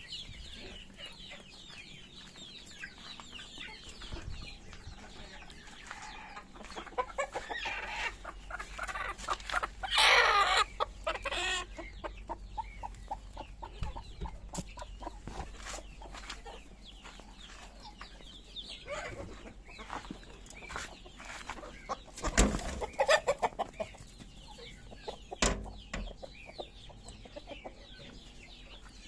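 A flock of chickens clucking as they feed, with a louder burst of squawking about ten seconds in. Many small sharp taps run under the calls, with a couple of louder knocks later on.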